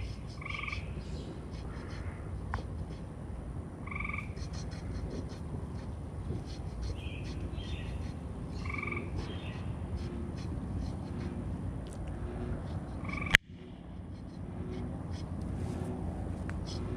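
Frogs calling from the water: short croaks repeated every few seconds over a low background hiss. A single sharp click stands out about thirteen seconds in.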